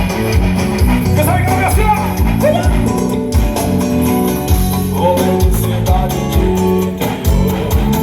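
Loud music played over a large sound system: a heavy bass line, a steady thumping beat and a singing voice.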